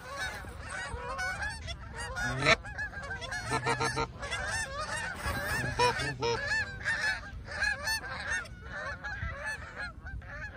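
A flock of Canada geese honking in flight, many short calls overlapping without a break.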